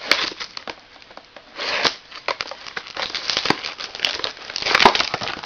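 Trading-card box wrapper crinkling and tearing as the box is opened, with irregular crackles and clicks that get louder about two seconds in and again near the end.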